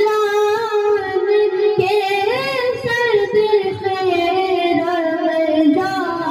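A man reciting a naat, a single sung voice amplified through the microphone, holding long drawn-out notes with ornamented turns, the melody slowly sinking in pitch.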